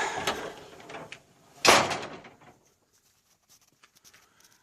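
A single loud knock or slam about one and a half seconds in, dying away over about a second, after some rustling handling noise; then a few faint clicks.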